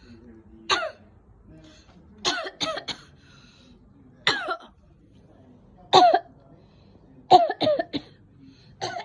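A person giving staged, pretend coughs: about eleven short, sharp coughs, some single and some in quick runs of two or three.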